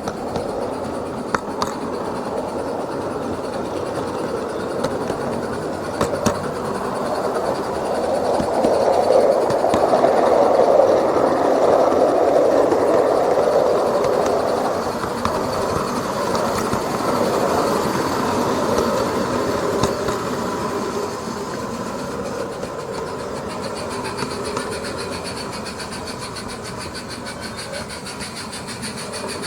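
SM32 garden-railway goods train running on 32 mm gauge track, its wheels clattering over the rails. It grows louder as it passes close, about ten seconds in, then fades away. A few sharp clicks come early on.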